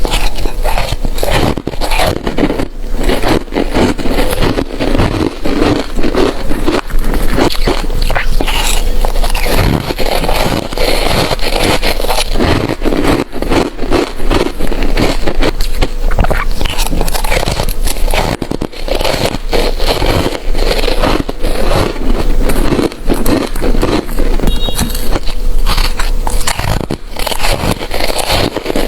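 A person biting and chewing ice close to the microphone: a dense, loud run of crunches and crackles with no pause.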